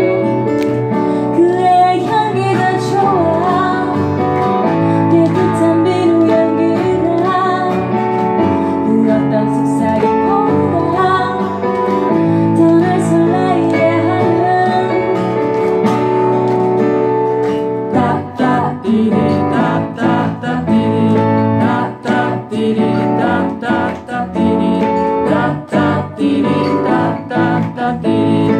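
A woman singing a slow pop song to her own acoustic guitar. About two-thirds of the way through, the strumming turns choppier, with short regular strokes.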